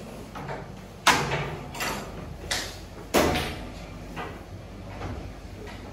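Thin hand-stretched baklava pastry sheets being handled and laid onto a tray on a steel counter: a few sudden flapping slaps with a short swishing decay, two of them loud, about a second and three seconds in.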